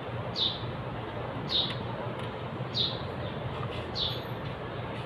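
A bird chirping over and over: one short, falling chirp about every second and a quarter, over a steady low background noise.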